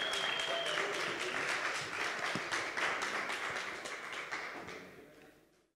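Audience applauding, the clapping fading out over about five seconds.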